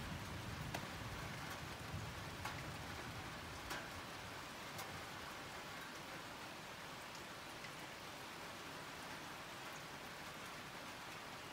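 Steady rain falling, an even hiss, with single drops ticking close by a few times in the first few seconds.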